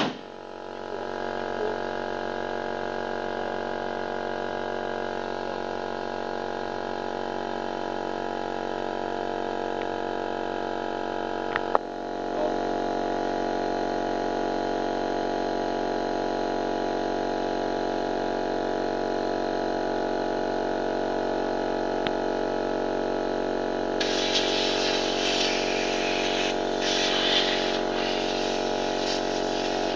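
Portable electric air compressor running steadily with an even hum. Near the end, air hisses in uneven spurts through the airline as the tyre is inflated.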